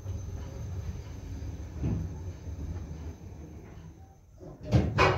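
Low mechanical rumble inside a KONE MonoSpace lift car, with a soft knock about two seconds in and two loud clunks near the end.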